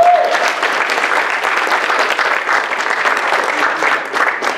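Audience applauding: steady clapping from a roomful of people.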